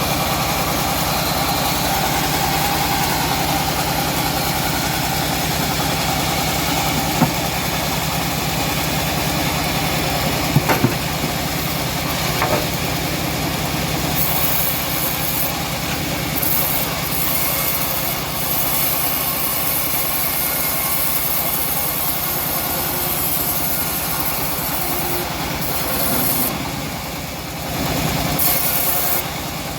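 Engine of a homemade bandsaw mill running steadily, with a few short sharp knocks about 7, 11 and 12 seconds in.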